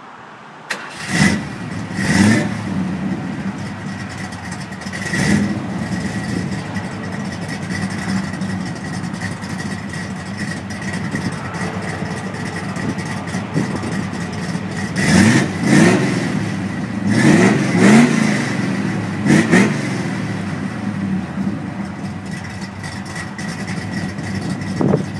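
Classic Ford Galaxie's engine running through its exhaust, blipped repeatedly. There are quick revs about a second in and around two and five seconds, then a run of four or five sharp revs between about fifteen and twenty seconds. It settles back to a steady idle between them.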